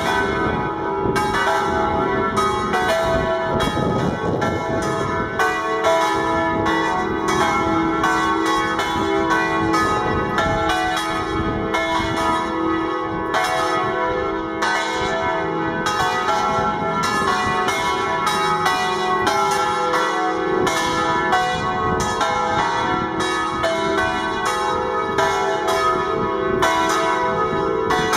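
A full peal (plenum) of church bells, all the bells ringing at once: many strikes a second overlapping into a continuous, steady ringing of several tones. The bells are rung in full to announce the Resurrection at Easter.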